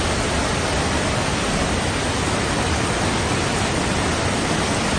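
Steady rushing of water, a constant even roar of floodwater.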